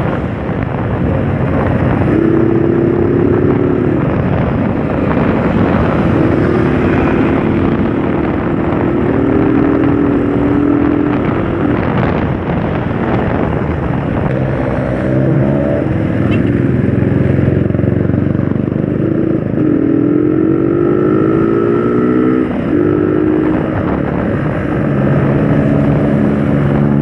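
Motorcycle engine running under way, its pitch rising as it accelerates about halfway through and again a few seconds later, over a steady rush of wind and road noise.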